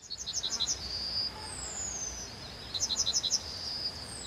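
Outdoor birdsong: two quick runs of high chirps, each about half a second long, with a thin falling whistle between them and another near the end, over a steady high tone.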